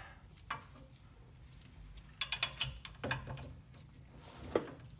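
Light metallic clicks and clinks of a socket and long torque wrench being worked on the front differential's mounting bolts: a quick run of ticks about two seconds in, and a sharper, briefly ringing clink near the end as the socket is set onto a bolt.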